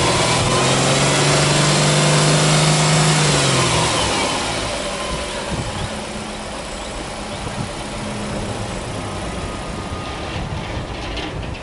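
Subaru Impreza's 1.5-litre flat-four (boxer) engine held at raised revs, then dropping back to a steady idle about four seconds in.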